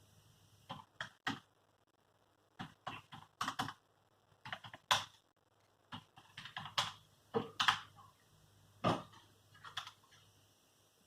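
Keyboard typing: irregular runs of quick key clicks with short pauses between them.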